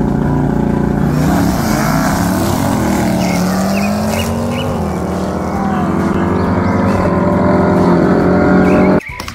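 Two sports cars, a white C8 Chevrolet Corvette and a silver Audi, drag racing: engines at high revs launching off the line and accelerating hard down the strip, the pitch dipping at each gear change. The sound cuts off abruptly about a second before the end.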